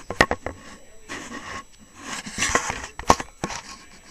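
Rustling and scraping with several sharp knocks or clicks, a few close together near the start and a couple more about three seconds in.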